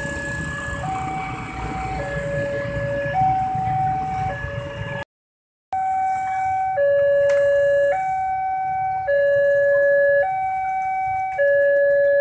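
Electronic railway level-crossing warning alarm sounding a steady alternating two-tone pattern, each tone about a second long, signalling an approaching train as the barrier arms lower. It breaks off briefly about five seconds in and comes back louder.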